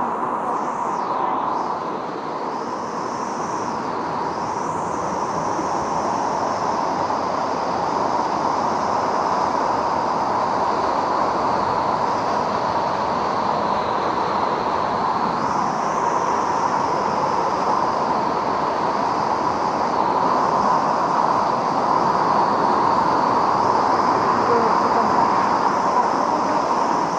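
Steady rush of falling water from a canyon waterfall, getting slowly a little louder, with a faint high whine wavering in pitch above it.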